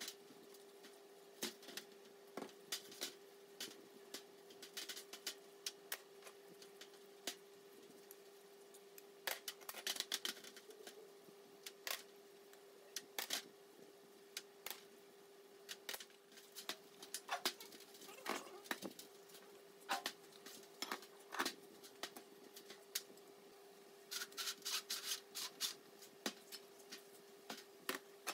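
Stiff brush scrubbing dismantled three-phase motor parts over a shallow steel tray of cleaning liquid: irregular scratchy brush strokes in short flurries, with light clicks and taps of metal against the tray. A steady faint hum runs underneath.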